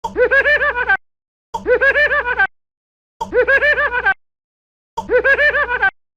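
A canned laugh sound effect: a quick, high-pitched run of about six 'ha' notes lasting about a second, played identically four times with short gaps of dead silence between.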